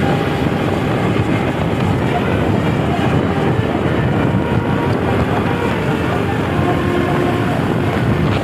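Vehicle on the move: a steady engine and road rumble at an even level throughout.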